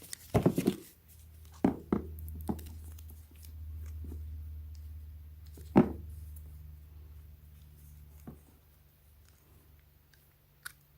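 Scattered knocks and clicks of a ratchet tie-down strap and its hardware being handled and pulled from the package, with one louder knock about six seconds in. A steady low hum runs underneath for most of it.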